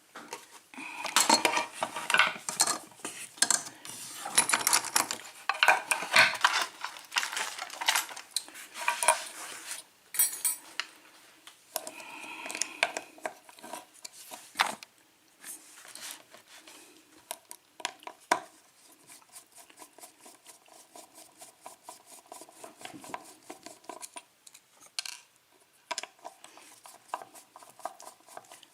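Small metal parts clinking and rattling as a Yale-type 5-pin cylinder lock is taken apart to get at its pins: a dense clatter of clicks for about the first ten seconds, then sparser clicks and light ticking.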